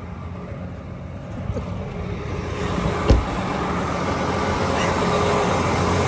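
John Deere tractor's diesel engine idling steadily, growing louder as it is approached, with a single sharp thump about three seconds in.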